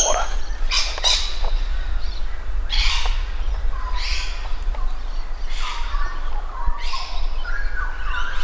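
Wild birds calling in eucalypt bushland: a series of about six harsh squawks spread over several seconds, with whistled notes joining near the end.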